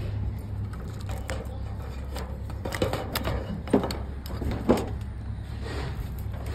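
Thin sheet-metal roofing panel being handled, giving a few sharp clicks and knocks, the loudest two about four and five seconds in, over a steady low rumble.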